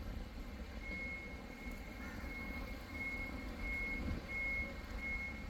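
A vehicle's reversing beeper sounding a steady series of high single-pitch beeps, about one and a half a second, starting about a second in, over the low rumble of car engines.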